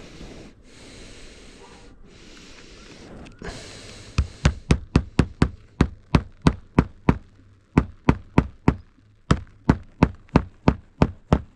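Hammer driving roofing nails into shingles: quick, evenly spaced blows, about four a second. They start about four seconds in and come in three runs with short pauses between.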